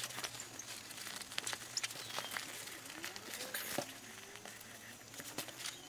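Satin fabric rustling and crinkling, with small irregular clicks and taps, as a costume is handled and pulled onto a plush dog mannequin.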